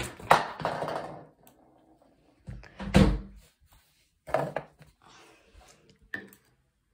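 A few knocks and bumps with rustling, as things are handled and moved about on a desk and floor. The loudest is a deep thump about three seconds in.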